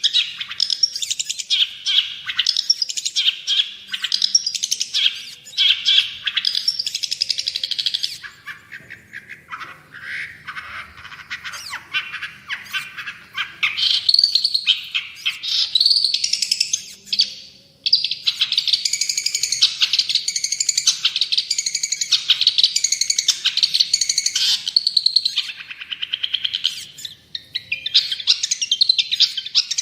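Long-tailed shrike (cendet) singing a continuous, fast, chattering song of varied notes. The song goes softer and lower for a few seconds about a third of the way in, then turns into a rapid run of repeated notes in the second half.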